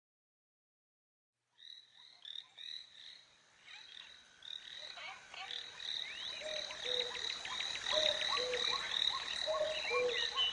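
Silence, then from about a second and a half in, a chorus of frogs croaking fades in and grows louder, many short calls repeating and overlapping at several pitches.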